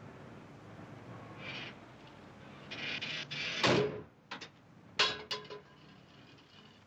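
Car hood slammed shut: a loud metal thud about three and a half seconds in and a second one about a second and a half later, each with a short ring, after lighter clattering under the hood.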